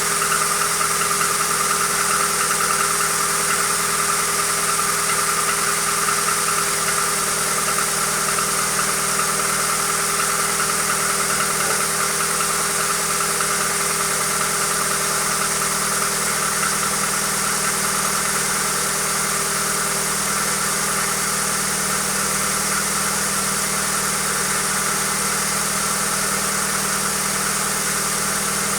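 Hyundai Accent engine idling steadily, with the engine knock that its owner is recording. A steady whine runs over the idle.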